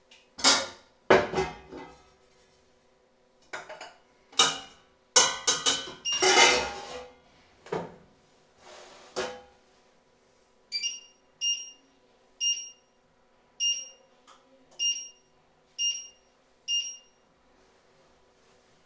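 Clatter and knocks of metal cooking pots and a lid being moved and set down on the stove, then about seven short electronic beeps roughly a second apart, typical of an electric cooktop's touch controls being pressed to switch on a hob and set its power.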